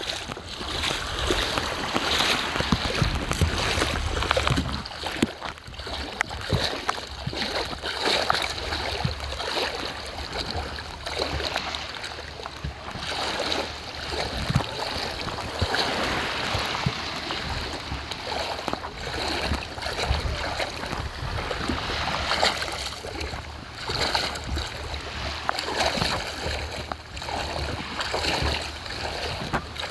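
Seawater washing and splashing along a beach, with footsteps of someone walking near the water's edge.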